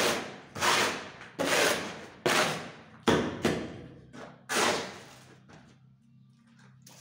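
Shovel scraping across a concrete floor as it turns and scoops wet cement mix: about seven rough scrapes in the first five seconds, each starting sharply and fading.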